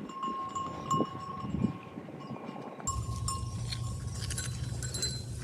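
Small bells ringing and clinking repeatedly. About three seconds in, a steady low hum and hiss starts abruptly.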